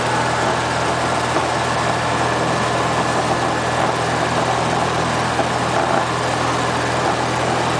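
Light airplane's engine and propeller running steadily: a constant low hum over a wide, even hiss.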